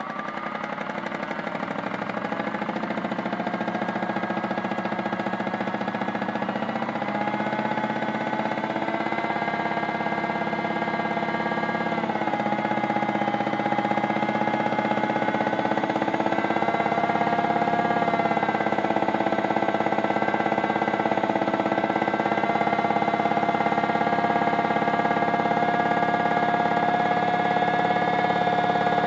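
Modified Miele toy washing machine's small electric motor spinning the drum: a steady whine of several tones. It rises in pitch as it speeds up at the start, dips briefly about twelve seconds in, then holds steady.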